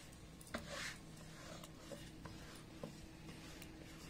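Wooden rolling pin rolling maida dough thin on a wooden roti board: faint rubbing with a few light knocks and ticks.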